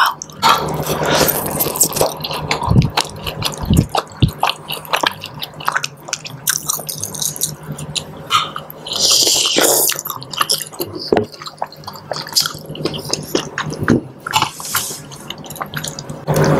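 Close-up eating sounds from a mukbang of seblak (soupy spicy noodles): chewing and slurping of the noodles and wet mouth clicks, with metal spoons and forks ticking and scraping against a glass baking dish.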